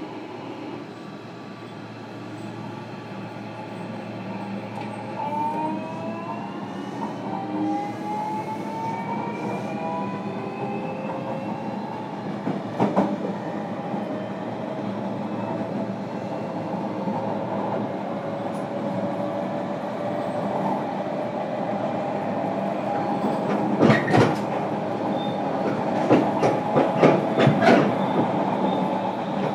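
JR Kyushu 305 series electric train heard from inside a motor car, pulling away. The traction motor and inverter whine rises through several tones together from about five seconds in as the train accelerates, then levels off over running noise that keeps growing. Wheels clack over rail joints once midway and in a quick run near the end.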